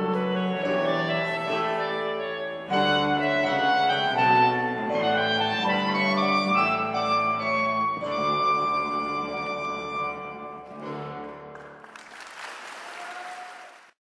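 Chamber ensemble of clarinet, cello and piano playing classical music. The music dies away about twelve seconds in and is followed by a short wash of noise that cuts off abruptly.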